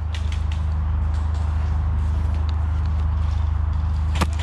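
Steady low mechanical hum with a fast, regular pulse, with a few faint distant clicks. Near the end, sharp snaps of airsoft gunfire begin.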